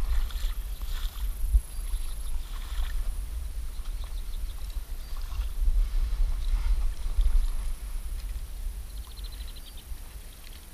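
Wind buffeting a body-worn camera's microphone, with rustling and footsteps through long wet grass at the water's edge. Near the end there is a short run of fast clicks.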